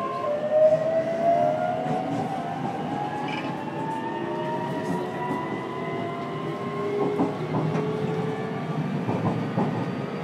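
JR Kyushu 303 series electric train heard from inside a motor car: the traction motors and inverter whine in several tones that climb slowly in pitch as the train gathers speed, over a steady running rumble. A few short knocks come near the end.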